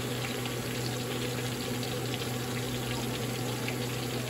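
Pieces of trout deep-frying in hot oil in a stainless steel pan: a steady sizzle scattered with small pops and crackles, over a steady low hum.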